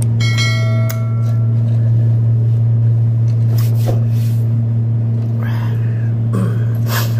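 Steady low hum throughout. Near the start a bright bell-like chime rings briefly, the ding of an on-screen subscribe-button animation.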